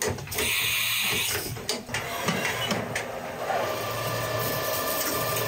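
CNC vertical mill's tool changer swapping tools, with hissing and a few clunks. Then a carbide insert drill cuts into a steel plate under flood coolant: a steady machining whine over the spray of coolant, starting about three and a half seconds in.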